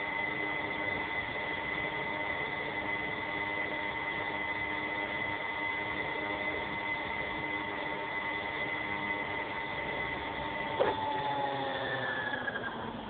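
Steady high-pitched whine of a model aircraft's motor running at constant speed, with a sharp click about eleven seconds in. After the click the pitch slowly falls as the motor winds down.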